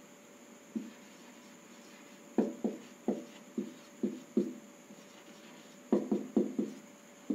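Whiteboard marker writing on a whiteboard: irregular short taps and strokes of the marker tip on the board, coming in small clusters as each word is written.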